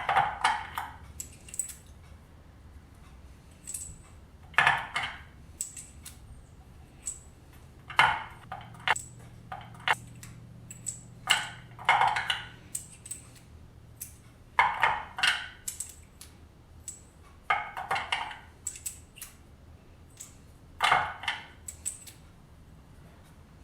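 Loaded .223 Remington brass cartridges clinking against a Dillon case gauge as they are dropped in and slid back out one after another to check their length and fit. Sharp metallic clinks with a short ring come every second or two.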